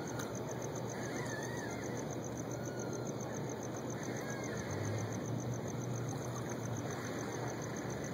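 Steady outdoor background noise with a low hum that swells about five seconds in, and a few faint high chirps.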